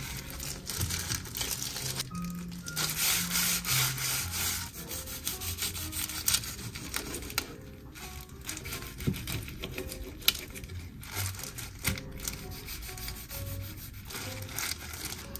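Rubbing and scraping noises with a few sharp clicks, over soft background music with a slow melody.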